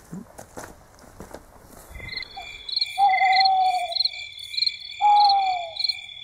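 An owl hooting twice, each hoot long and falling slightly, over a steady high chirring of crickets. This is the channel's owl-logo sound sting. Faint rustling and clicks come before it, in the first two seconds.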